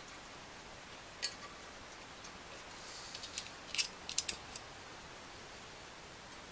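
Light metallic clicks of steel needle rollers and a screwdriver tip as the needles are set one by one into the A-arm's needle bearing race: a single click about a second in, then a quick cluster of clicks near the middle.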